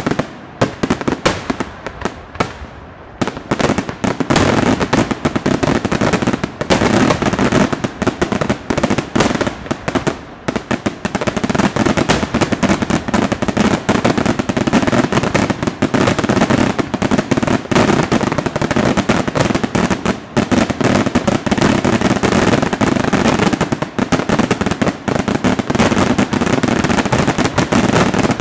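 A daytime fireworks barrage: firecracker bangs going off in a rapid, near-continuous volley, with a short dip in the firing about two seconds in and again around ten seconds in.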